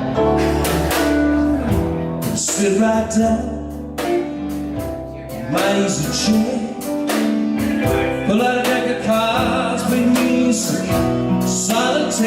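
Blues band playing live: a guitar plays lead lines with bent notes over sustained low bass notes and steady drum beats.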